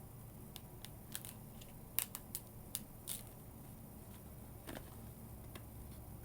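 Stiff plastic retail packaging being worked open by hand: an irregular run of sharp plastic clicks and snaps, the loudest about two seconds in, then a couple more near the end.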